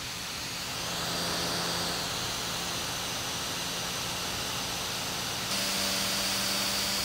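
13-inch Touch Bar MacBook Pro cooling fan running at full speed: a steady hiss with a faint hum, stepping slightly higher and louder about five and a half seconds in. The fan runs flat out although the machine is barely warm, a fault traced to a component that came off the logic board.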